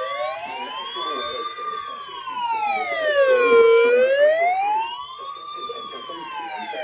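Electronic siren wailing, its pitch rising and falling slowly, about one full sweep every four seconds. Just at the start, the steady 1050 Hz NOAA Weather Radio alert tone fades out under it.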